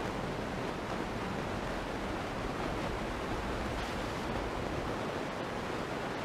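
Steady road and tyre noise of a moving car, heard from inside its cabin: an even rushing hiss that holds at one level, with no impact or horn.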